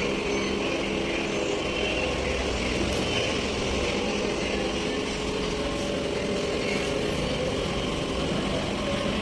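A steady engine or motor drone with an even hum, holding at one level without revving or breaks.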